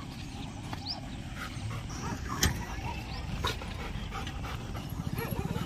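Dogs whimpering and panting during an excited greeting, with short faint whines. A sharp click about two and a half seconds in, and a lighter one a second later, over a low rumble.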